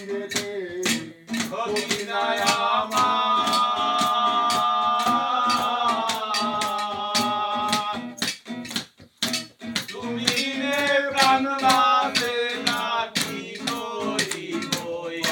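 Men singing to an acoustic guitar, with a steady rhythmic shaking of plastic water bottles used as shakers. One long note is held in the middle. There is a short break, and then the singing picks up again.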